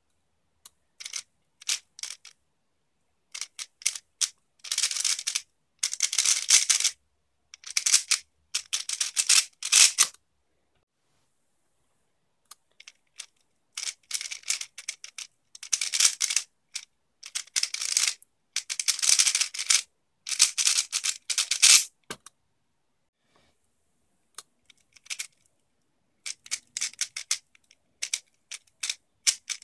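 Stickerless X-Man Tornado 3x3 speedcube being turned very fast: dense runs of plastic clicking and clacking from the turning layers, in bursts broken by short pauses. Twice it goes silent for about two seconds.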